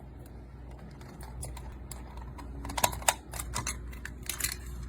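Irregular sharp clicks and taps from a cockatiel pecking at an optical computer mouse, the two loudest coming close together a little under three seconds in.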